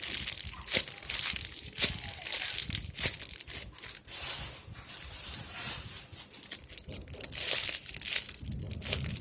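Crinkling and rustling of craft materials being handled and scrunched while a homemade squishy is put together, with sharper crackles every second or so.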